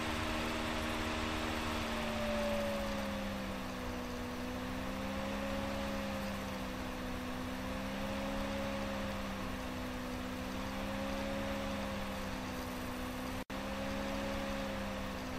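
Steady machine hum and hiss with a few tones that drop slightly about two seconds in, then waver slowly up and down. The sound cuts out for an instant near the end.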